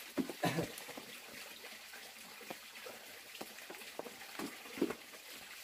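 Scattered light knocks and clicks over a faint steady hiss, as a large metal serving tray is set onto a metal stand and small wooden stools are moved.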